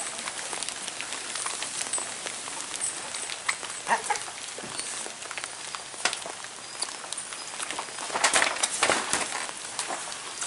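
Outdoor ambience with scattered scuffs and knocks from wrestlers moving and grappling on a wet tarp-covered ring, with a burst of louder scuffling about eight seconds in.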